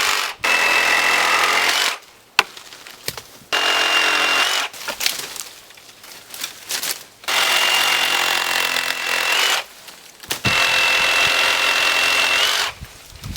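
Power saw cutting branches in five bursts of one to two seconds each, a steady high whine over the rasp of cutting, stopping fully between cuts.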